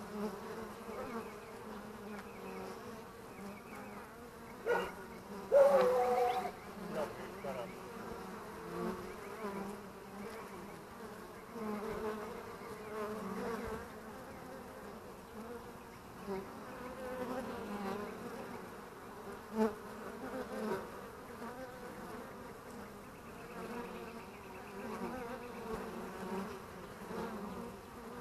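Honeybees buzzing at a hive entrance: a steady hum of many bees coming and going, with single bees swelling louder as they fly close past the microphone. The loudest close pass comes about six seconds in.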